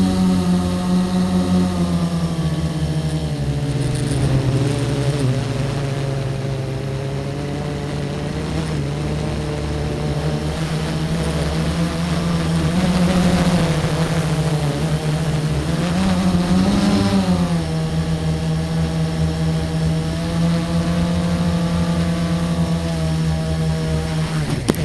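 A car engine running steadily, its pitch dropping a little after a couple of seconds and rising briefly twice with small changes in speed.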